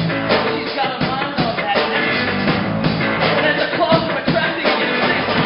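Live rock band playing: electric guitars and a drum kit, with regular drum hits.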